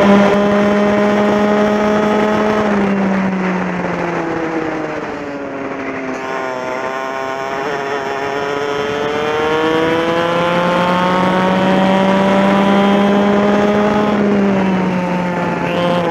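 TKM two-stroke kart engine heard from onboard in a race. The revs drop as the kart slows for a corner a few seconds in, then climb steadily back up and hold high, before dropping again for the next corner near the end.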